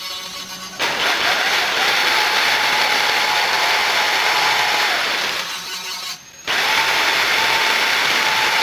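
An electric power tool running under load with a steady whine. It eases off about five seconds in, stops briefly, then starts again at full strength.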